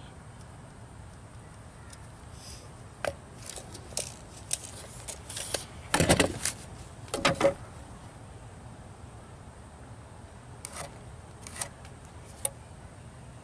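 Scattered clicks and short rattles of a tape measure and a plastic rafter square being handled on a wooden workbench, loudest twice, about six and seven seconds in. A faint steady low rumble runs underneath.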